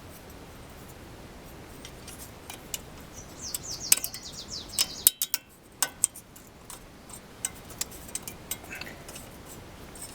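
Sharp metallic clicks, taps and scrapes of front brake parts being handled and fitted, with a quick run of high ticks about three to four seconds in and the loudest clicks a little after.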